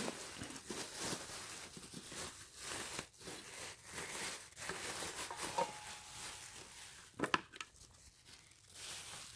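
Thin plastic bag crinkling and rustling as it is pulled off a waffle maker by hand, with one sharp knock about seven seconds in; the rustling dies down after that.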